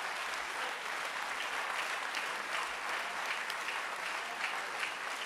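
Church congregation applauding steadily, many hands clapping at once.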